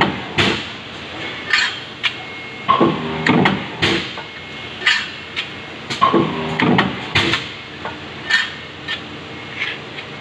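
AIDA stamping press cycling, each stroke a cluster of metallic clanks with a brief ringing tone, repeating about every three and a half seconds, with lighter metal knocks between strokes as parts are set into and taken from the die.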